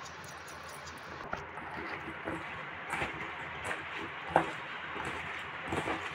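A hand tossing boiled potato chunks with dried herbs in a stainless steel bowl: soft squelches and irregular light knocks of potato against the metal, starting about a second in, the sharpest knock about four seconds in.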